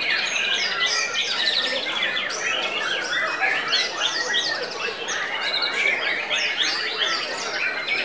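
Several white-rumped shamas (murai batu) singing against each other in a contest: a dense, continuous chorus of overlapping whistles, trills and chattering phrases.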